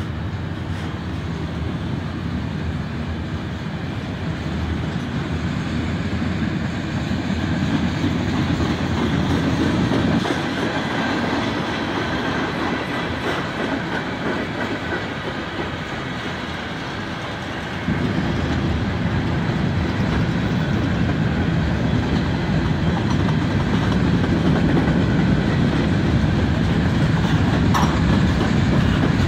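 A long freight train of autorack, covered hopper and tank cars rolling past: a steady rumble and clatter of steel wheels on the rails, growing a little louder about two-thirds of the way through.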